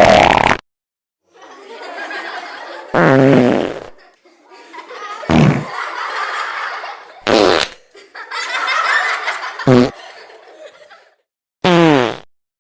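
A run of fart sound effects: a series of short blasts, the last falling in pitch, with laughter filling the gaps between them.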